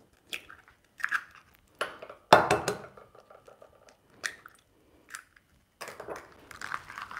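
Eggshells cracking and crunching as two eggs are broken by hand into a glass bowl: a handful of sharp cracks over the first few seconds, the loudest about two seconds in, then softer handling noise near the end.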